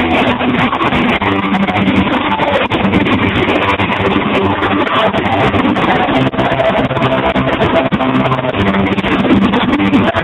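Guitar music playing steadily.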